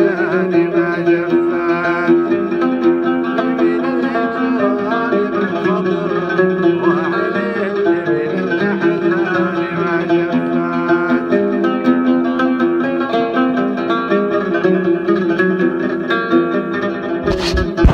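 Instrumental music led by plucked string instruments, in a Middle Eastern style, playing steadily. A sharp click cuts in near the end.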